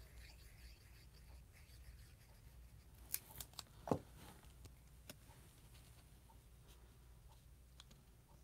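Faint handling of small die-cut cardstock pieces on a craft mat, with a few short light taps and clicks about three to four seconds in.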